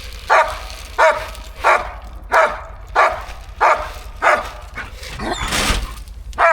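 A dog barking in a steady series, about one bark every two-thirds of a second, seven in a row. A short noisy rush follows, then one more bark at the end.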